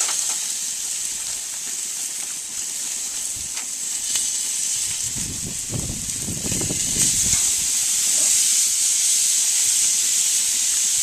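Marinated chicken sizzling on the hot grates of a gas grill: a steady high hiss that grows louder about seven seconds in as the wet meat goes onto the grill. Some low handling noise comes in the middle.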